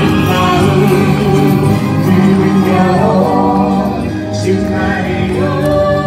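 Male and female singers singing a wedding song together through microphones, over musical accompaniment, holding long notes.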